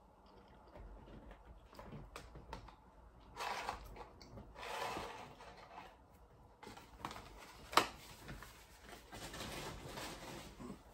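Faint eating and food-handling noises at a table: a few short rustling, noisy bursts and one sharp click or tap about three-quarters of the way through.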